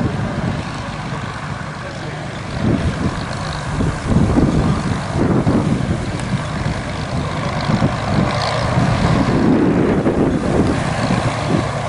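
Supermarine Spitfire's V12 piston engine running as the fighter taxis on grass, with gusts of wind buffeting the microphone.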